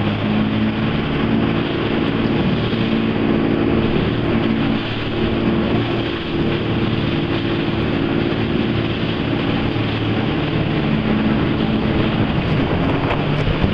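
Jet boat engine running steadily at speed, its even drone carried over a continuous rush of churning whitewater.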